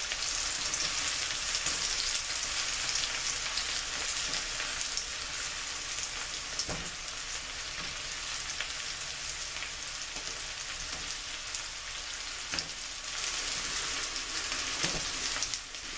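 Sliced parboiled potatoes and onions sizzling steadily in hot oil in a frying pan, with a few faint knocks as more potato slices go into the pan.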